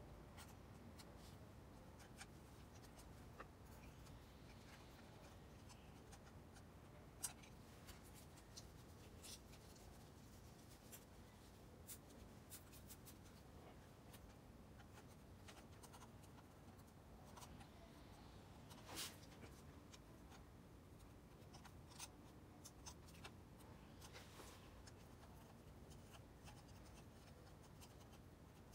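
Faint scratching and small clicks of a soldering iron tip and solder wire being worked against a stainless steel motorcycle muffler to seal a hole. There is a sharper click about seven seconds in and a slightly longer one about nineteen seconds in.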